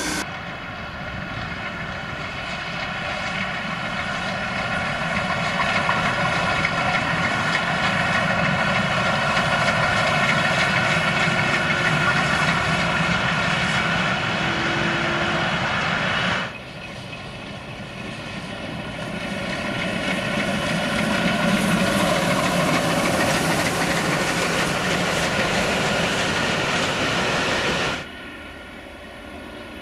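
Steam locomotive hauling a passenger train at speed: a steady running sound that swells as the train draws near. It breaks off suddenly about halfway through, builds again, then drops away near the end.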